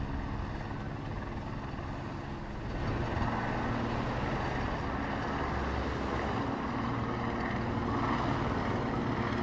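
Cars driving past on a street, a steady rush of engine and tyre noise that gets louder about three seconds in.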